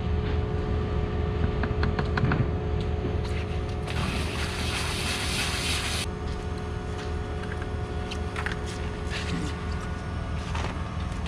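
Heavy concrete pump truck's diesel engine running steadily with a pulsing low rumble and scattered clicks. A loud hiss about four seconds in lasts two seconds and cuts off abruptly.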